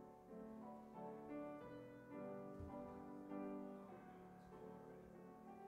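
Quiet piano music: a slow succession of held notes and chords.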